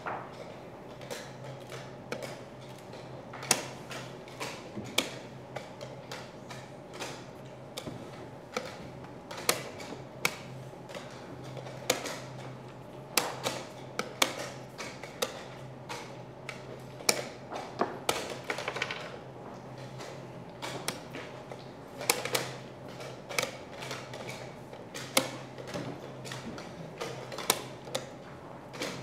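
Wooden chess pieces set down hard on a wooden electronic board and chess clock buttons slapped in a fast blitz time scramble: a rapid, irregular run of clicks and knocks, several a second at times, over a steady low hum.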